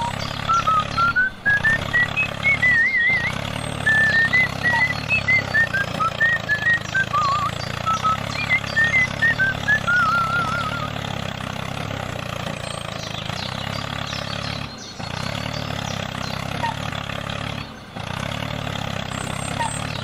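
A steady engine-like rumble runs throughout, with music over it: a warbling, whistle-like melody for about the first ten seconds, broken by a few brief cuts.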